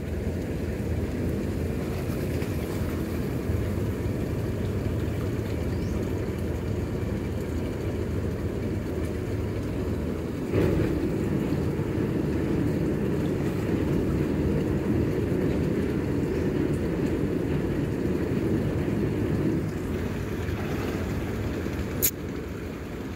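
The sand boat's engine running steadily with a fast, even pulse. It gets somewhat louder about ten seconds in, and there is a single sharp click near the end.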